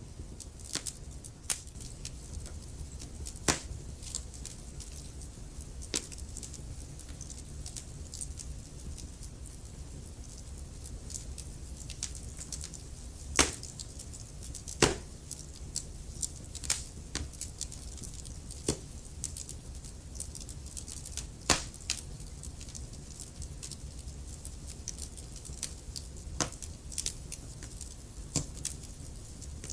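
Wood fire burning in a fireplace: irregular crackles and sharp pops from the burning logs over a steady low rumble of the flames, with a few louder pops here and there.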